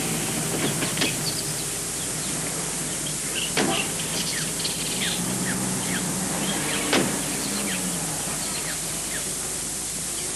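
Birds chirping over a steady hiss, with a car engine idling low that fades out near the end. Two sharp knocks, about a third and two thirds of the way through, as car doors are shut, the second the louder.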